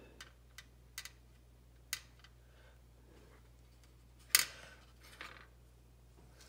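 Small plastic model-kit parts clicking and tapping as they are handled and fitted together: a few light clicks in the first two seconds, then a sharper click a little after four seconds and a softer one just after.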